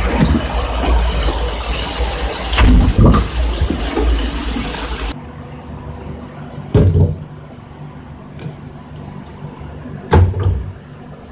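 Green beans and tuna in an oily sauce bubbling and sizzling hard in a frying pan, which cuts off suddenly about five seconds in. After that come two dull knocks, about three seconds apart, as ingredients are set down on a cutting board.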